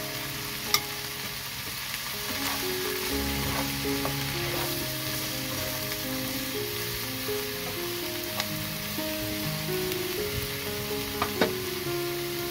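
Sliced mushrooms sizzling in a hot frying pan as they are stirred, with a few sharp clicks of the spoon or spatula against the pan: about a second in, once past the middle and twice near the end.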